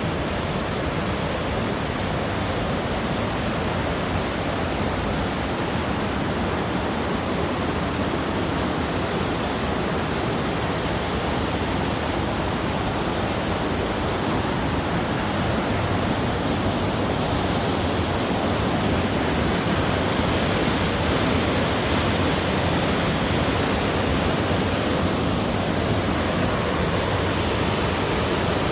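Mountain stream or waterfall rushing: a steady, dense hiss of falling water that grows slightly louder over the last half.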